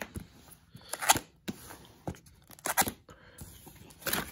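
Sealed cardboard box being pulled open by hand, its glued flaps and tape tearing loose in several short, sharp rips.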